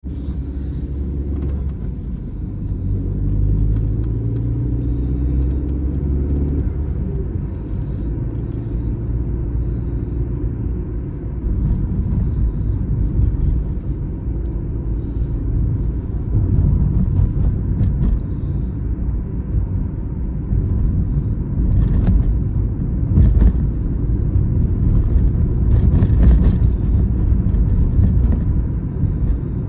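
An Opel Astra H being driven: a steady low rumble of engine and tyres on the road. In the first several seconds the engine note shifts in pitch, and near the end come a few sharp knocks.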